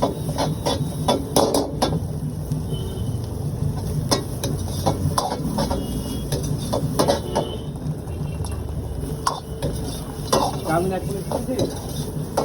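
Metal spatula repeatedly striking and scraping a wok as noodles are stir-fried, over a steady sizzle.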